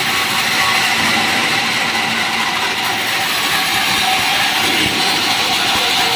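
Sawmill band saw running with a steady, loud mechanical noise that holds even throughout.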